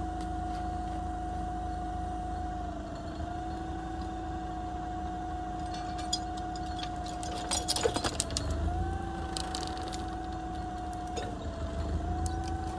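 Yale forklift engine running with a steady hum, its note dipping and recovering a few times as the hydraulics lift the mast to pull a chained fence post. A cluster of sharp rattling knocks comes about eight seconds in.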